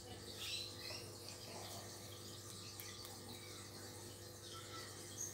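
Steady low hum of aquarium pumps running, with a few faint high chirps: one about half a second in and another near the end.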